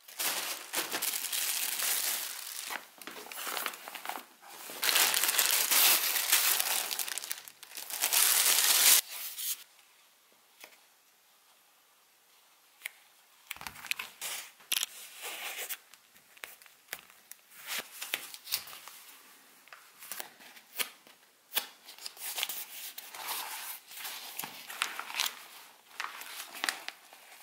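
Plastic packaging of acoustic foam crinkling and tearing as it is opened, dense and loud for about nine seconds. After a short lull come lighter, scattered crinkles and taps as the foil-faced and fabric-faced foam sheets are handled and pressed.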